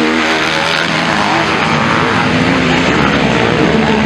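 Motocross dirt bike engine revving on a dirt track, its pitch rising and falling with the throttle.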